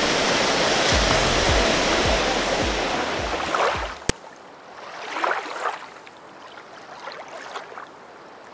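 Small waterfall rushing steadily over a rock ledge into a pool, with low thumps underneath. About four seconds in, the rushing cuts off suddenly after a sharp click, leaving only faint swelling whooshes.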